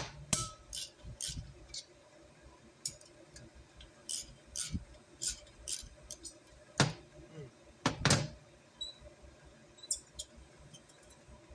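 Small metal clicks and clinks of an Allen wrench and screws being worked out of a diesel heater's combustion chamber and set down on the bench, with two louder knocks about seven and eight seconds in.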